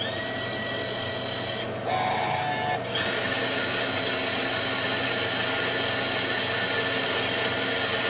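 TEAC P-55 disc label printer running steadily through its magenta print pass, a mechanical whirr with a steady high tone. About two seconds in the sound shifts for a second, then runs on slightly louder.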